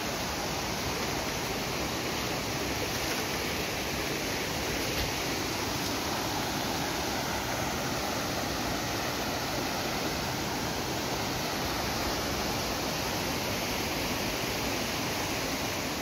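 Steady rush of flowing water, an even hiss that holds without a break.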